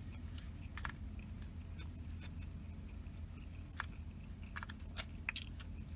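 Close-up chewing of pork fried rice, with scattered soft mouth clicks and smacks and a plastic spoon working in the takeout tray, over a steady low hum.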